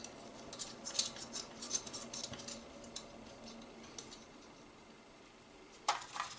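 Small metal robot-kit parts clicking and clinking as they are handled. Faint scattered ticks for the first few seconds, then a short rattle near the end as of fingers picking through loose screws and nuts in a plastic parts tray.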